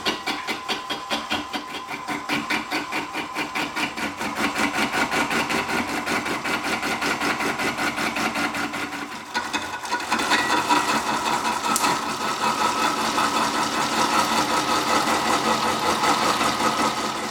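Carbide turning tool cutting into a pineapple spinning on a wood lathe, knocking in an even rhythm of about three to four beats a second as the tool meets the lumpy fruit. The cutting gets louder about ten seconds in, and there is one sharp click near twelve seconds.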